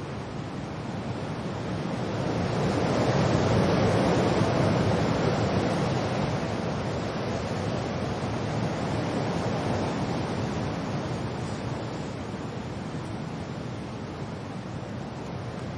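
Wind and rain, a steady rushing noise that swells in a gust a few seconds in and then slowly eases.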